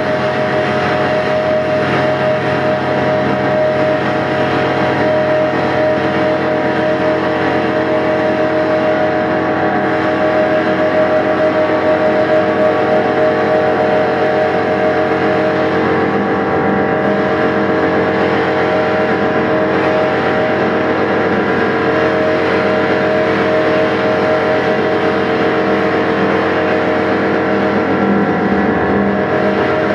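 Live drone music: a dense layer of loud, sustained tones held steady without a beat, over a noisy haze.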